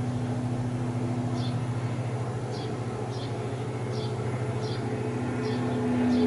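Airplane engine drone passing overhead: a steady low hum with a few steady tones, growing louder near the end. A small bird chirps repeatedly, about once every half second or so.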